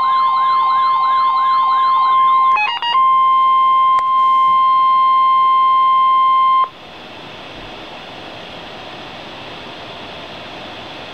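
NOAA Weather Radio receiver sounding an emergency alert: a warbling siren, about four sweeps a second, over the steady warning alarm tone, until a few short beeps about two and a half seconds in stop the siren. The steady warning tone runs on alone and cuts off abruptly near seven seconds, leaving the radio's static hiss.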